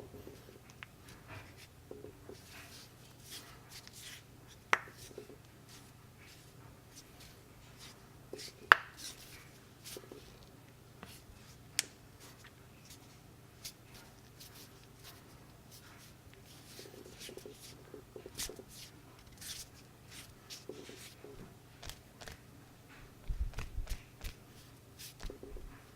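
Knuckles cracking: a few sharp separate pops, the loudest about nine seconds in, among quieter clicks and the rustle of hands moving. A few low thuds come near the end.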